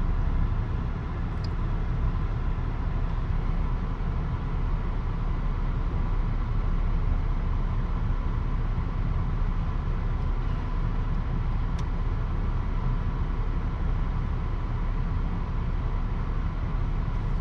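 A steady low rumble with a faint steady tone.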